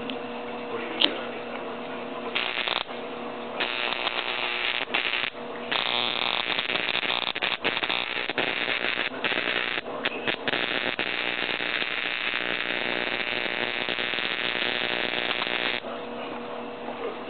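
Electric bug-zapper lamp arcing through a grasshopper lodged across its high-voltage grid: a loud, raspy crackling buzz that comes in broken stretches from about two seconds in, then runs almost continuously for about ten seconds before cutting off near the end. Under it the lamp's steady electrical hum, and one sharp snap about a second in.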